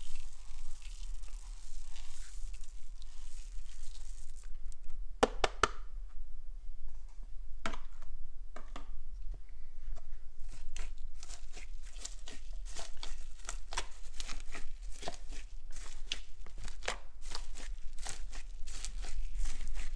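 Foam beads being pressed and kneaded into slime by hand, making a dense run of small crackles and crunches that thickens about halfway through. The first few seconds hold a softer rustle of beads pouring out and settling on the slime.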